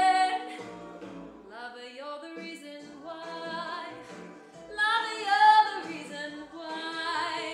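A woman singing a slow song over instrumental accompaniment, in phrases with wavering held notes, loudest about five seconds in.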